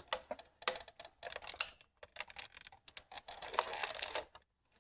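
Toy car body creaking and clicking under the weight of a bare foot standing on it: a run of irregular small clicks and crackles.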